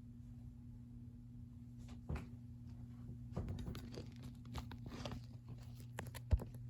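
Steady low electrical hum of a Hunter ceiling fan's spinner motor, with scattered rustling and clicking from handling and one sharp click near the end.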